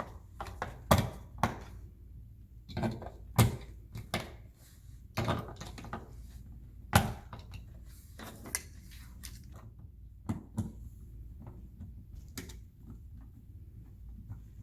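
Irregular sharp plastic clicks and knocks as AA batteries are fitted into the battery compartment of a plastic toy chimney and the part is handled.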